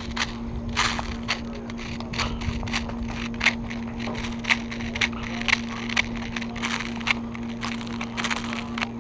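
Steady engine hum of a riding lawn mower, with scattered sharp clicks and snaps, several a second, the loudest about three and a half and four and a half seconds in.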